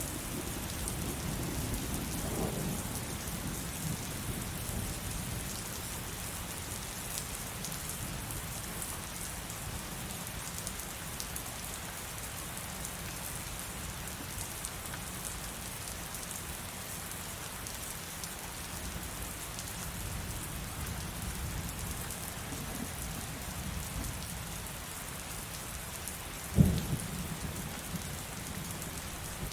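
Heavy rain falling steadily. A low thunder rumble dies away in the first few seconds, and near the end a sharp thunderclap cracks, followed by a low rumble.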